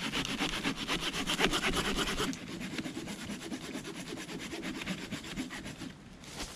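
Folding hand saw cutting through a dead, rotting tree trunk with quick, even back-and-forth rasping strokes. The strokes become noticeably quieter a little over two seconds in.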